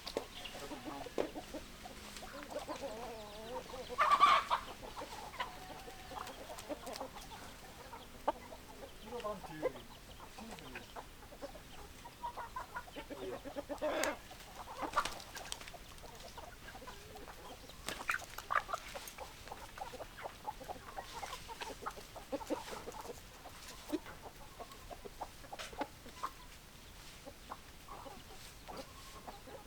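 Chickens clucking, with scattered short calls; the loudest call comes about four seconds in.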